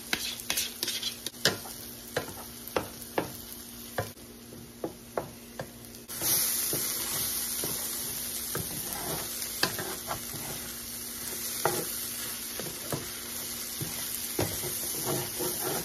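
Cauliflower fried rice and scrambling eggs sizzling in a skillet while they are stirred, with a wooden spoon scraping and tapping against the pan. The sizzle grows suddenly louder about six seconds in and stays up.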